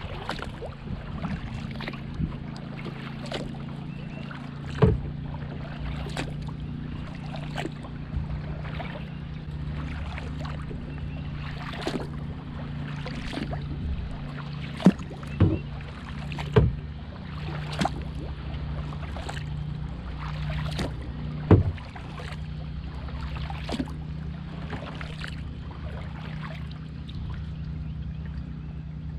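Kayak paddle strokes: the blades of a double-bladed paddle dipping and pulling through calm water in an even rhythm, about three strokes every two seconds, with a few sharper, louder knocks among them. A steady low hum runs underneath.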